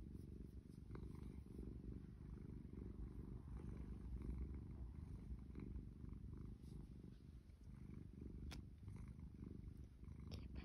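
Domestic cat purring steadily while being stroked, a low continuous rumble close to the microphone.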